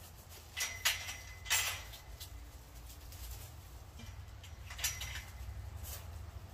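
A chain-link kennel gate and its metal latch being worked: a handful of sharp metallic clanks and rattles, the loudest in the first two seconds and two more near the end.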